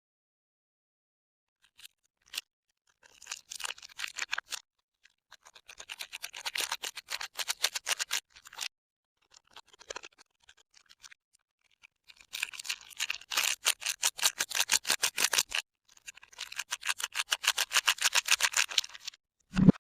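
Bars of soap being handled, with four bursts of rapid scratchy clicking, each a few seconds long and separated by short pauses. A single sharp thump comes right at the end.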